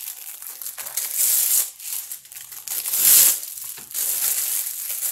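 Plastic packaging of store-bought frozen parathas crinkling as one paratha is peeled off the stack and the bag is handled, in several rustling swells, loudest about a second in and again about three seconds in.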